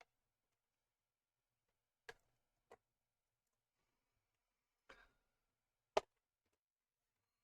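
A few short, sharp clicks and knocks of laptop case parts being handled during reassembly, about four in all, the last the loudest.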